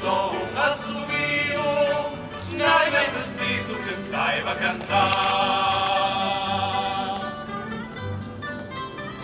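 A group of students singing fado in chorus to guitar accompaniment. About five seconds in they hold one long note for about two seconds, then the voices drop away and the plucked guitars carry on, fading.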